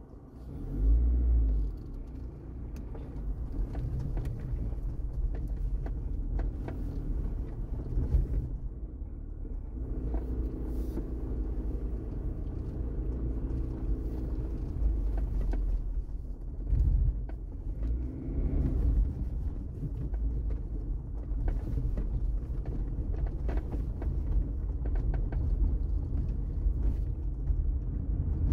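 Car on the move: a steady low rumble of engine and road noise, with a louder surge about a second in.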